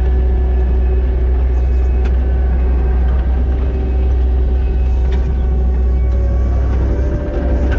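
Kubota SVL90-2 skid steer's diesel engine running steadily with a deep rumble while it drives a Harley power rake through topsoil. Two sharp clicks come about two and five seconds in, and the engine note shifts slightly higher near the end.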